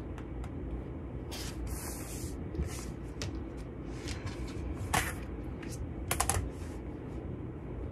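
Rotary cutter and clear acrylic quilting ruler on a cutting mat, trimming a cotton patchwork block square, followed by the block and ruler being moved and set down. Scattered light clicks and taps, a sharper one about five seconds in and a quick run of clicks about six seconds in, over a steady low room noise.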